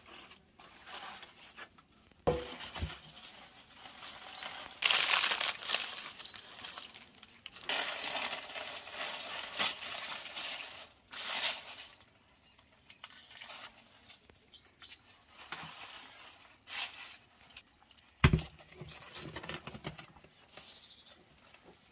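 Aluminium foil crinkling and tearing in irregular bursts with pauses as a foil-wrapped roasted cow's head is unwrapped and handled. Two knocks cut through, one about two seconds in and a sharper, louder one near the end.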